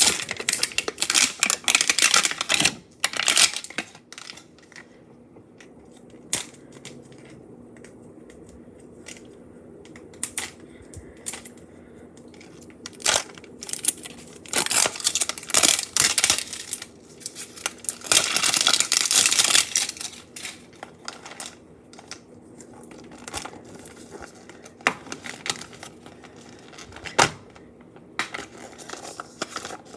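Close-up crinkling and tearing of the plastic wrapper being peeled off a Mini Brands capsule ball, in bursts of a second or two with pauses between, plus a few sharp clicks of the hard plastic capsule being handled.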